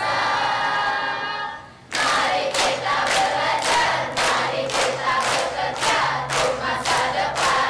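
Large crowd of students chanting together: a long held shout that fades out just before the two-second mark, then a rhythmic chant with sharp accents about two a second.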